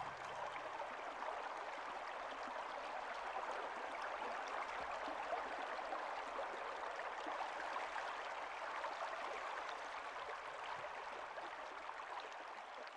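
Faint, steady rushing of water.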